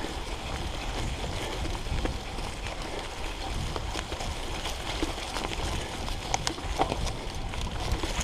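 Mountain bike riding over a trail of dry fallen leaves: a steady low rumble of tyres on rough ground with frequent small clicks and knocks from leaves, twigs and the bike's rattle over bumps.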